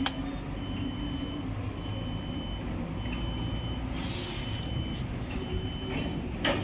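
An electronic beeper sounding one high tone about once a second over the steady low running of a truck engine, with a short burst of air hiss about four seconds in and a sharp click at the start and again near the end.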